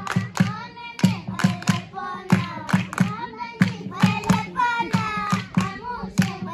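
Voices singing together, accompanied by rhythmic hand clapping at about three claps a second.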